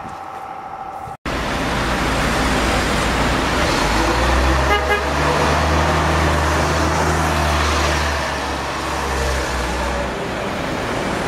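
A vintage double-decker bus's engine rumbling loudly as it passes close by amid street traffic noise, with a brief pulsed horn toot just before it goes past.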